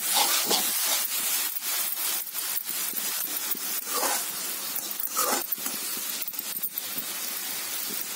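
A metal slotted spoon scraping and stirring around a steel kadhai, over a steady sizzle of mashed tomatoes, onion and garlic frying in oil.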